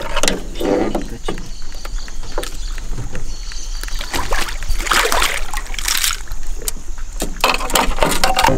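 Water splashing and sloshing against the side of an aluminium fishing boat as a hooked arowana thrashes at the surface, in irregular short bursts that are strongest in the second half.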